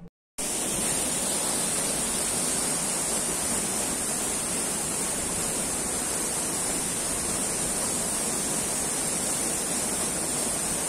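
Steady rush of a waterfall's falling water, even and unbroken, starting just after a moment of silence at the very beginning.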